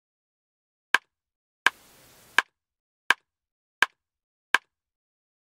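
Six sharp clicks, evenly spaced about two-thirds of a second apart, with a faint hiss between the second and third, set against dead silence: a percussive intro sound effect.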